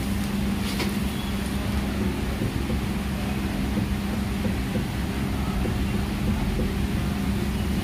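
Steady low hum of a running motor, with one steady low tone under it.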